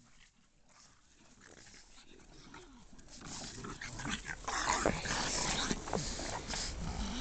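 Several pugs scuffling and making dog noises as they play-fight, faint at first and louder from about three seconds in.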